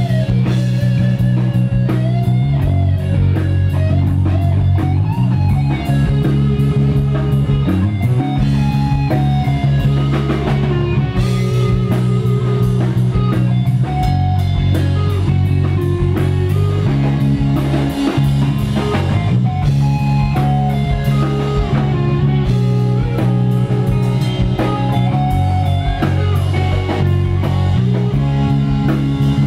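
Live rock band playing an instrumental passage: an electric guitar lead line with bending notes over bass guitar and drum kit.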